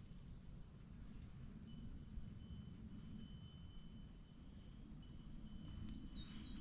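Faint, steady high-pitched chirring of insects, several tones layered together, over a low rumble.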